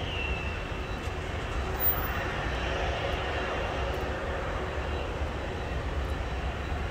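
Distant jet airliner engines running: a steady rumble and hiss, with a high whine that falls slightly in the first second.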